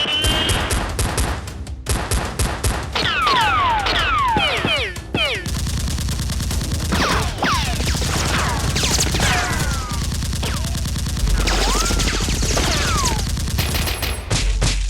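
Rapid gunfire, long runs of automatic fire, mixed with many falling whistling sweeps like ricochets.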